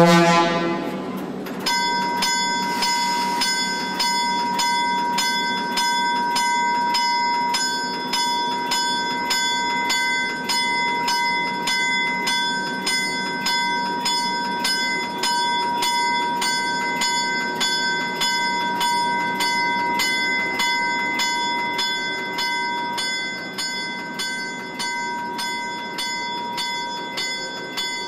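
A diesel locomotive's bell ringing steadily, about one and a half strokes a second, on a Western Pacific F-unit, with the engine running underneath. A horn note dies away in the first second.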